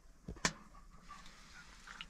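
A single sharp knock about half a second in, then a dog whining faintly in short high notes.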